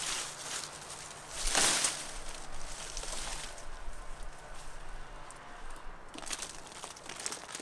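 Rustling of large squash leaves and vines as a striped squash is pulled free and lifted, with one louder rustle about a second and a half in and small crackles after.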